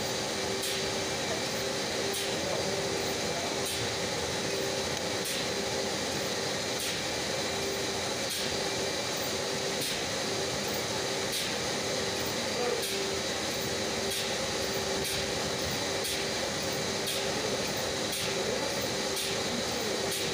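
Steady hum and hiss while engine oil is pumped from a drum through a hose and dispensing gun into the engine's filler, with one steady low tone and a faint tick about every one and a half seconds.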